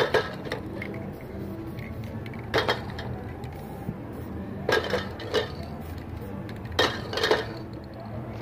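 Metal spray-paint cans clinking and knocking against one another as they are handled in their crate: about six sharp clinks, some in quick pairs, a second or two apart.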